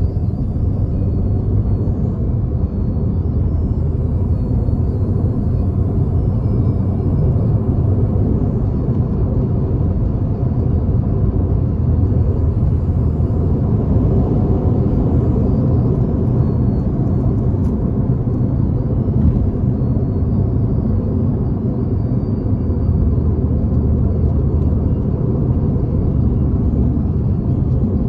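Turbocharged Volkswagen Jetta cruising: a steady, loud rumble of engine and road noise, with faint high whistling tones above it from the turbo.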